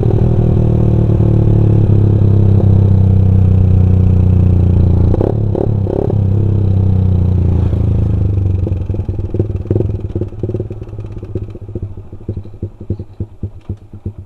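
Suzuki Satria FU's single-cylinder four-stroke engine running through a Pro Liner aftermarket exhaust with a deep, bassy note. There are a few short revs about five seconds in, then the sound thins into separate exhaust pulses that fade away over the last few seconds.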